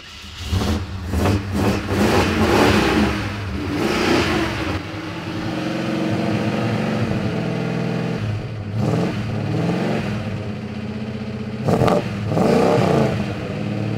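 1987 Jeep J10's carbureted AMC 360 V8 running just after a cold start, having sat unrun for years. It is revved up and down a few times in the first seconds, runs steadily at a fast idle in the middle, and is blipped again twice near the end.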